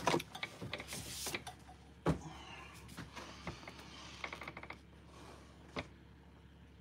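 A small stretched canvas handled on a tabletop: scattered knocks and light scrapes, with one louder thump about two seconds in and another knock near the end.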